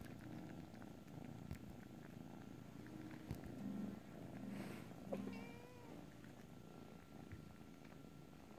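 Kitten purring softly in a low, pulsing rumble while kneading a fleece blanket, with a brief high chirp about five seconds in.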